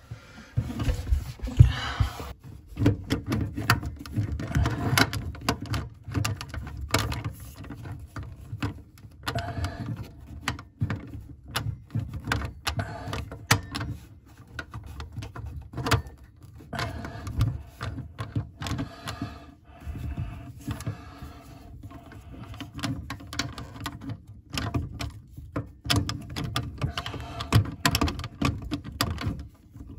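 Irregular clicks, knocks and rubbing handling noise from hands working on a faucet's braided supply hoses and mounting hardware under a bathroom sink, close to the microphone.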